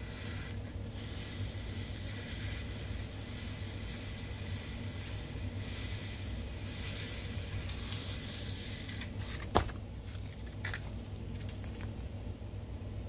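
Fine 400-grit sandpaper being rubbed by hand on a 27SI alternator bushing, a soft scratchy rasping that fades after about nine seconds. It is followed by a sharp click and a smaller click about a second later, as of a part or tool being set down.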